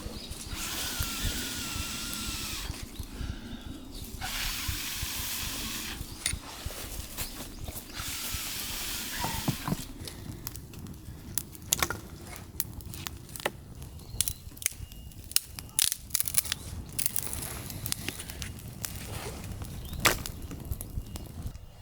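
Three long hissing blows of about two seconds each, air being blown into a wood fire that will not catch, then scattered sharp crackles and pops from the burning wood.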